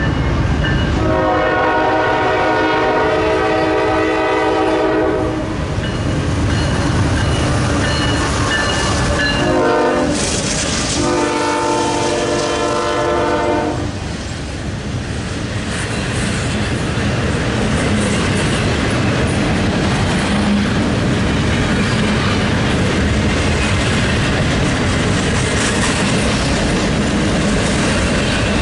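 Freight locomotive air horn sounding a chord of several tones: one long blast, then a short one and another long one. After that comes the steady rumble and clatter of a CSX double-stack intermodal train's well cars rolling past close by.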